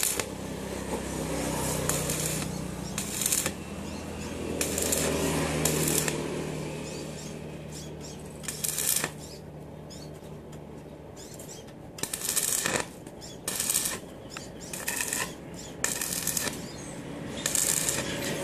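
Electric arc welding: the arc crackling and sizzling in short bursts, stopping and starting about a dozen times, over a steady low hum.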